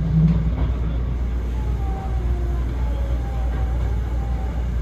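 Hankyu Kobe Line electric train running, heard from the front car: a steady low rumble of the wheels on the track, with faint whining tones that waver in pitch.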